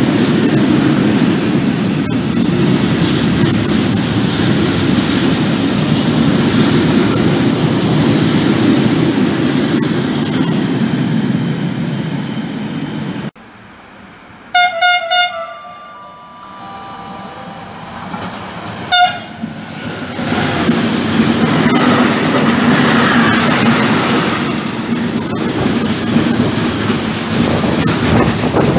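Freight wagons rolling past with steady wheel and rail noise. After a break, an approaching electric locomotive gives two short horn blasts and a third short blast a few seconds later, then its freight train rolls past with wheel noise building up.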